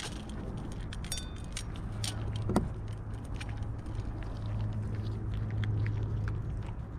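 Cat chewing dry kibble from a stainless steel dish: irregular crunches and sharp little clicks of kibble and teeth against the metal. A steady low hum runs underneath, strongest in the middle.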